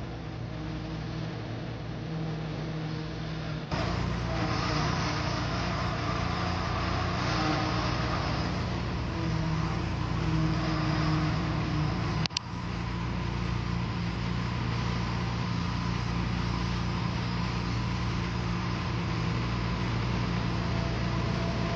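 Engine of a heavy machine running steadily with a low hum. The sound changes abruptly about four seconds in, and a sharp click with a brief dropout comes past halfway.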